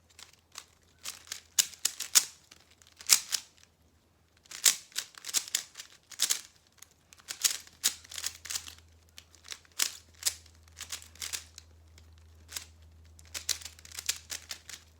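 Rubik's cube being turned rapidly during a speed solve: quick runs of plastic clicking and clacking in bursts, with brief pauses between them.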